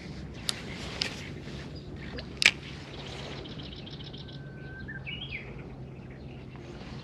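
Birds calling over a steady low hum, with short whistled calls about four and a half to five and a half seconds in. Three sharp clicks stand out, the loudest about two and a half seconds in.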